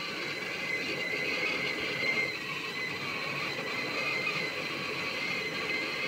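Enamel stovetop whistling kettle whistling at the boil on a gas hob: one continuous, slightly wavering high whistle over a breathy hiss.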